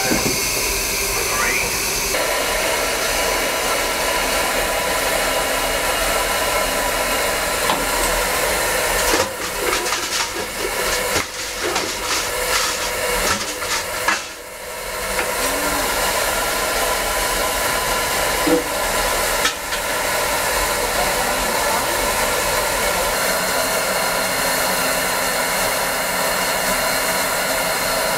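Narrow-gauge steam locomotive standing with steam hissing from it in a steady, loud rush, briefly uneven and dipping about halfway through.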